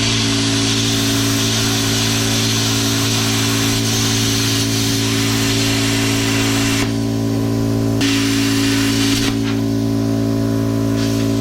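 Hitbox plasma cutter cutting rusty angle iron: a loud steady hiss of the air-plasma arc over the steady hum of the machine and its built-in air pump. The hiss stops about seven seconds in, comes back for just over a second, then cuts off, leaving the hum.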